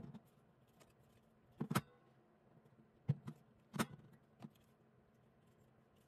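A few brief, separate knocks and clicks, about five in a few seconds, as a metal axial-fan assembly joined with mending plates is handled on a tabletop. Near silence between them.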